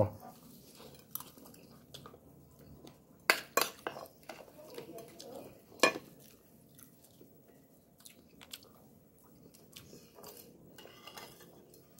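A man eating by hand: quiet chewing and handling of food, broken by a few sharp clicks of a plate and utensil, the loudest about three seconds in and again near six seconds.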